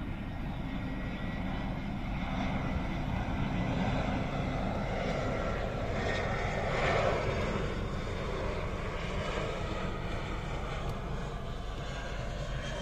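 Airliner jet engines on final approach at low thrust, a steady rushing rumble that swells as the plane passes closest about halfway through, then eases off.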